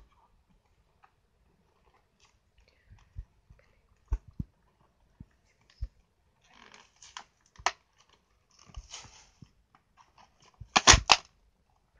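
Toy blister packaging being handled and pried open: scattered knocks and thumps, stretches of crinkling plastic, and a loud crackle of plastic near the end.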